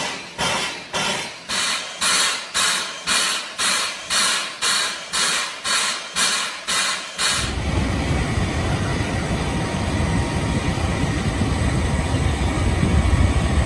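Steam-driven auxiliary on the newly steamed boiler of locomotive 3001 exhausting in sharp hissing puffs, about two a second. About seven seconds in this gives way to a steady, loud rush of blowing steam with a heavy low rumble.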